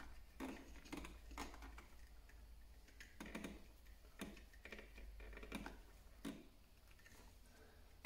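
Faint, irregular clicks and light scraping of a small screwdriver and stiff wires being worked in a flush-mounted wall box while the blue neutral wire is fastened into a smart switch module's terminal.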